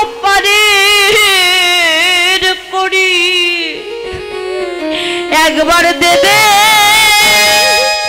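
A woman singing a Bengali kirtan into a microphone: two long, held phrases with wavering vibrato, broken by a short pause near the middle, over instrumental accompaniment.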